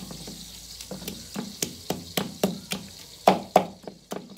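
Wooden pestle pounding chopped tomatoes in a clay mortar bowl: a steady run of thuds, about three to four a second, the two heaviest coming about three seconds in.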